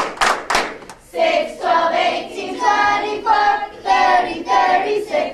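A group of schoolchildren chanting a skip-counting times-table rhyme in unison in a sing-song rhythm. It opens with a few sharp hand claps, and the sung chant starts about a second in, in rhythmic phrases.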